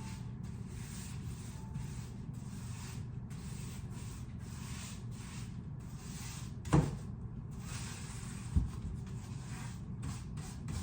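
Paintbrush strokes brushing semi-gloss paint onto a wall or ceiling, a run of short scratchy rubbing sounds. Two sharp knocks come about 7 and 9 seconds in.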